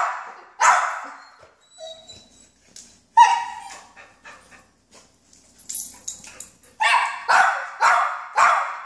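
A dog barking excitedly, begging to go for a walk: two barks at the start, a single sharp bark about three seconds in, then a quick run of about five barks near the end.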